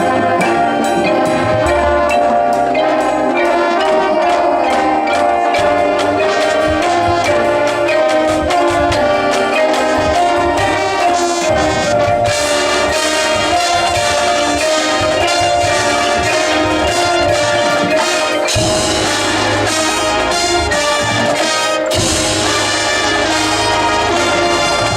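Marching band playing: brass sustaining chords over a steady, driving drumline pulse. The drums thicken about twelve seconds in, and the brass swells again near the end.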